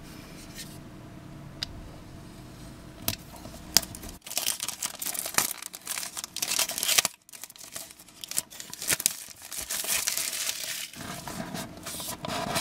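Clear plastic shrink wrap being slit and torn off a smartphone box. A few light clicks come first, then from about four seconds in there are several seconds of dense crinkling and tearing, with a brief pause in the middle.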